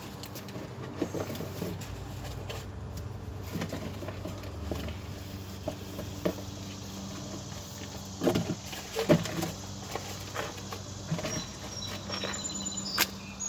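Scattered light knocks and clicks from handling tools and parts, a cluster of them about eight seconds in, over a steady low hum.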